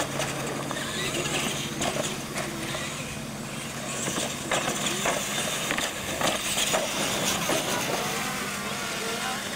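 Electric radio-controlled monster trucks racing across concrete, motors and gearing running steadily. Over this come a series of sharp knocks as they bounce over the ramps and obstacles.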